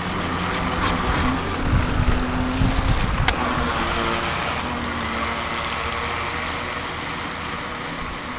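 Electric motor of a 9.6-volt RC toy boat whining as the boat runs close past, over the hiss of its wake through the water. The sound eases off in the last few seconds as it moves away, and a single sharp click comes about three seconds in.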